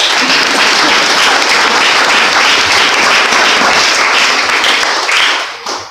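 A church congregation applauding: steady clapping that dies away near the end.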